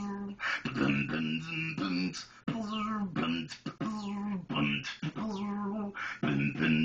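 A man beatboxing: sharp mouth-made percussion clicks alternating with short hummed, pitched vocal notes, in a repeating rhythm.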